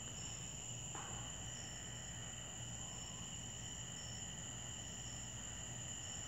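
Insect chorus of crickets trilling steadily in several high pitches, with a fainter chirp repeating about once a second.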